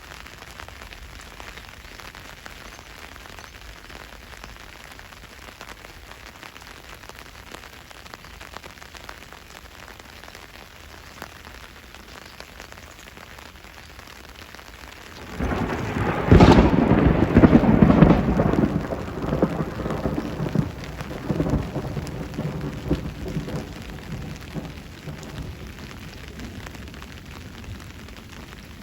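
Steady rain falling, then about halfway through a sudden loud thunderclap breaks out and rumbles on, fading away over several seconds while the rain continues.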